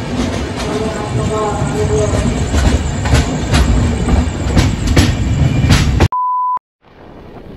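Darjeeling Mail passenger train running, heard from an open coach door: a loud rumble of wheels with repeated sharp clicks over the rail joints. About six seconds in it cuts off to a short steady beep and a moment of silence, then wind buffeting the microphone.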